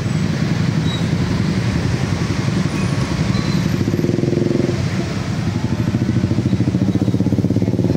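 Motorcycle and road-traffic engines running together at close range, with one engine's pitch rising and then dropping about halfway through.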